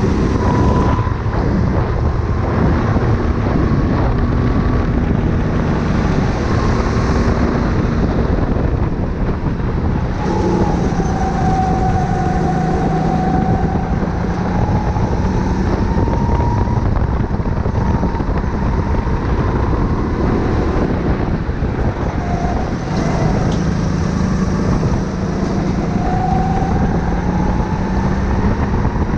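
Sodi go-kart's engine heard from the driver's seat at racing speed, its pitch dropping and climbing again as the throttle comes off and back on through the corners, over a dense low rumble.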